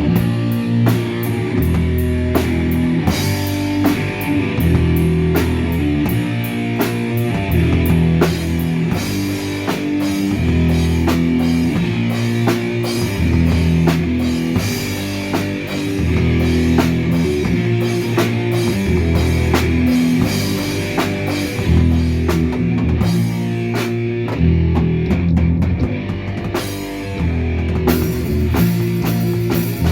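Heavy metal music: a drum kit played hard with steady cymbal and snare hits over distorted electric guitar and bass riffs, the chords changing every second or two.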